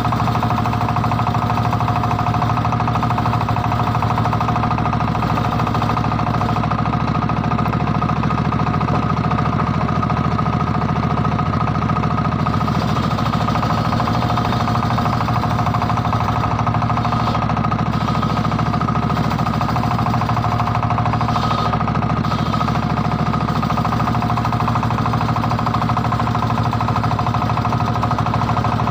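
Circular-saw sawmill machine running steadily, a constant whine over a low drone, with no change in pitch or level.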